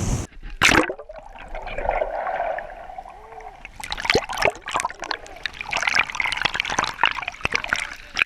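Water splashing and trickling close by: one sharp splash under a second in, then a run of quick splashes and drips from about four seconds in.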